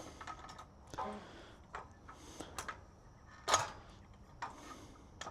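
Irregular light clicks and knocks of a jack and exhaust parts being handled and positioned under a car, about eight in five seconds, with the loudest knock about three and a half seconds in.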